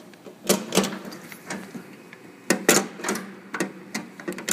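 Golf cart rattling and knocking as it is driven, with irregular sharp clatters over a steady low hum.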